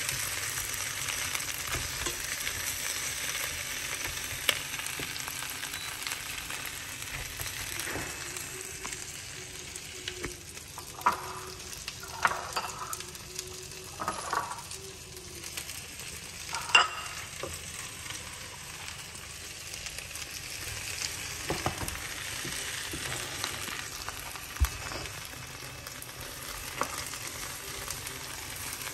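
Giant river prawns sizzling in hot oil in a nonstick frying pan, with a spatula scraping and turning them. A few sharp knocks and clinks come in the middle, the loudest about seventeen seconds in.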